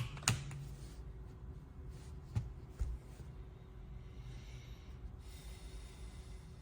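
Mechanical keyboard with pre-lubed Reaper switches: a last keystroke just after the start, then two softer key clicks between two and three seconds in, with only a faint hiss between.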